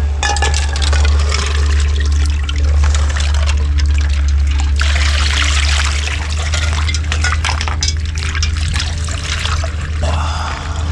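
Ice water poured from a metal pot over a person's head back into a chest-freezer ice bath, splashing and trickling in repeated pours. The loudest pour comes about halfway through, and another follows near the end.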